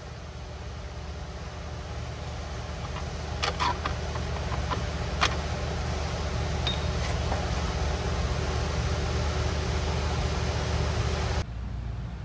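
Steady mechanical hum that grows a little louder over the first few seconds, with a few sharp metallic clicks about three and a half and five seconds in. The hum drops abruptly near the end.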